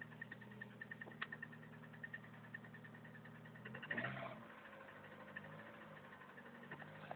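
VAZ-11194 16-valve four-cylinder engine with a lightweight piston and rod group idling with a sharp, rapid knock repeating several times a second, which the owner takes for a strong piston knock. It rises briefly in revs about four seconds in.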